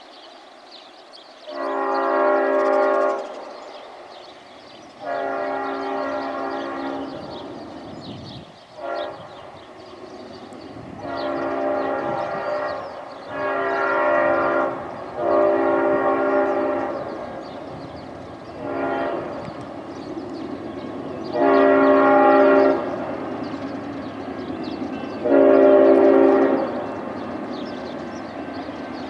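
Five-chime Leslie RS-5T air horn on the lead locomotive, blowing about nine blasts in the long-long-short-long grade-crossing pattern as the train approaches. Under the horn, the rumble of the approaching train slowly grows louder.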